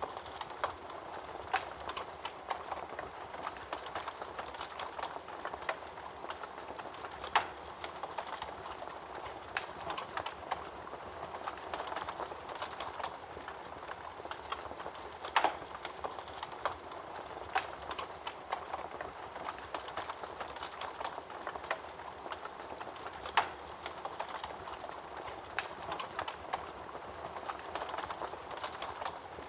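Fire crackling: a steady hiss dotted with many small irregular pops, and a few louder pops about 7, 15 and 23 seconds in.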